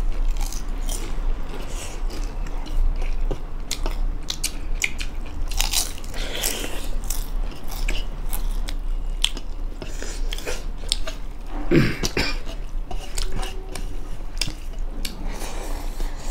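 Close-up chewing of rice and local chicken eaten by hand, with wet lip smacks, crunches and a constant run of short clicks. One louder burst stands out about twelve seconds in.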